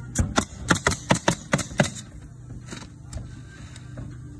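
Pneumatic coil roofing nailer firing rapidly into asphalt shingles, about eight shots in under two seconds, then one more a second later.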